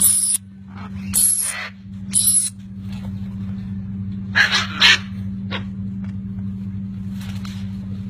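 Large parrots giving loud, harsh squawks, five of them within the first five seconds and a couple of fainter ones later, over a steady low hum.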